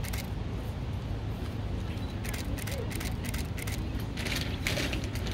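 Camera shutter clicking in quick runs of sharp clicks, over a steady low hum and faint background voices.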